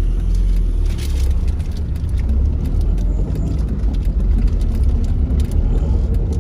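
Car driving, heard from inside the cabin: a steady low rumble of engine and tyre noise, with scattered faint clicks.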